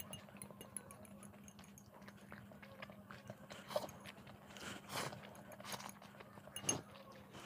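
Close-up eating sounds of instant noodles: soft chewing, and a metal fork clinking and scraping on a glass plate, with a few louder sounds about 4, 5 and 7 seconds in.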